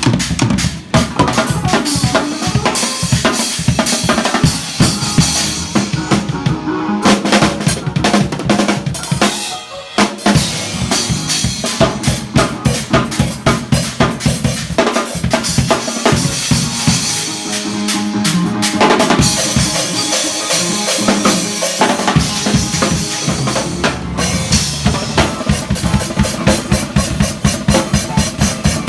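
Live drum kit played hard and fast, with bass drum, snare and rimshots in quick fills and rolls. It drops out briefly twice, about a second in and again about ten seconds in, and near the end it plays a run of fast, even strokes.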